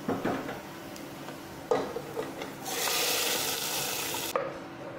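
Hot coconut-oil tempering of shallots, dry red chilli and curry leaves poured into dal and spinach curry, sizzling for about two seconds and cutting off suddenly. Metal clanks of the aluminium kadai and wooden spoon against the pressure cooker come before it, and a knock ends it.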